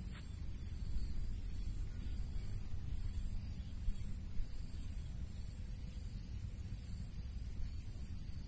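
Open-air field ambience, mostly a steady low rumble of wind on the microphone, with a faint high steady whine throughout and a couple of small soft knocks about four seconds in.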